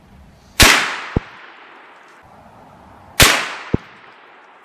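Two rifle shots from a bolt-action Ruger American in .350 Legend, about two and a half seconds apart. Each loud report is followed about half a second later by a short, sharp knock.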